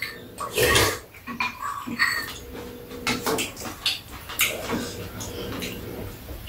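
Eating sounds: spoons clicking against bowls, with slurping and chewing.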